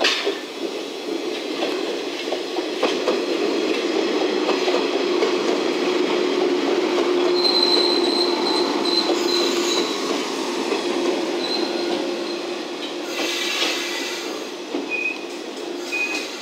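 JR West 115-series electric train rolling slowly past, its running noise steady. A thin high wheel squeal comes in for a couple of seconds about halfway through, a brief rush of noise follows a few seconds later, and two short squeaks sound near the end.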